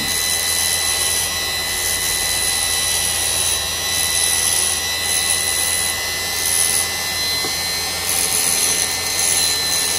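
Parkside double bench grinder motor running steadily with a high whine, driving its flexible drive shaft; a high grinding hiss comes and goes several times as the shaft's small bit is pressed against a small workpiece.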